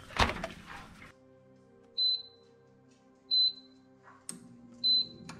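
A sharp clatter near the start, then three short high beeps from a NuWave air fryer's control panel as its buttons are pressed, about a second and a half apart.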